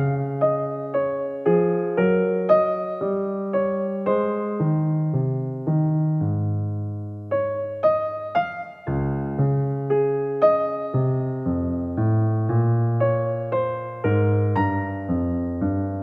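Background piano music: a keyboard playing gentle notes and chords at an even pace, each note struck and fading, with a brief break about eight seconds in.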